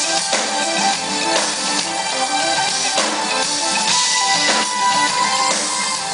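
DW drum kit played live, with drum hits and cymbal crashes, over a backing track of sustained pitched notes.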